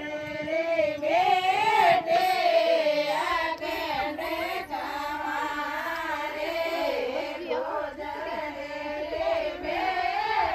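Group of women singing a Rajasthani folk song together in unison, one continuous wavering melody.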